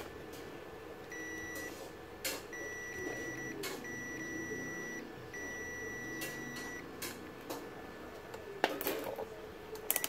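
Digital multimeter's continuity beeper sounding four times, a short beep and then longer tones of about a second to a second and a half, as the probes are held on the leads of a power-supply MOSFET; a beep across its pins points to a shorted MOSFET. A few sharp clicks follow near the end.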